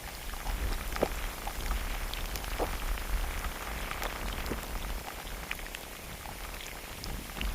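Steady rain falling, with many separate drops ticking at irregular moments over an even hiss, and a low rumble underneath.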